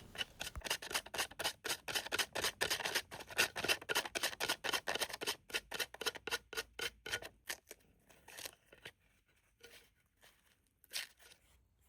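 Emery board rasping back and forth along the edge of a decoupaged piece, filing off the excess rice paper in quick strokes of about four a second. The strokes thin out in the last few seconds, with a few isolated strokes near the end.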